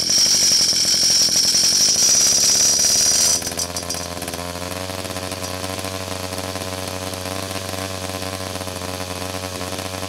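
Small two-stroke pocket bike engine running on a freshly replaced carburetor. It revs high with a loud whine, then drops suddenly to a steady idle about three and a half seconds in.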